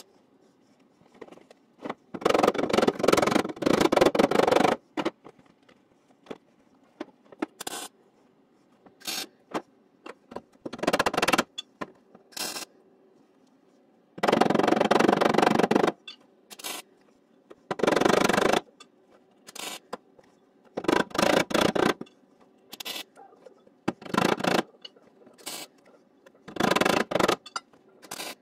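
Arc welder tacking a sheet-metal floor patch panel into a pickup's cab: crackling welding bursts of one to three seconds, about seven of them, with a few sharp hammer taps on the sheet metal between them.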